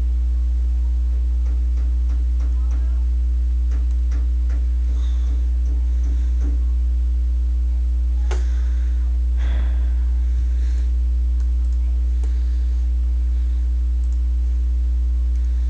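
Steady, loud low electrical hum with several steady higher tones above it, typical of mains hum picked up by the recording microphone. A few faint short clicks come and go through it.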